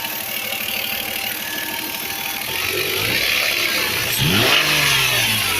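Toyota 2JZ-GE inline-six running with a rapid knock, revved up once about four seconds in and then dropping back. This is a knock that has appeared 300 km after a rebuild; the owner does not know its cause and has already fitted new Taiho connecting-rod bearings.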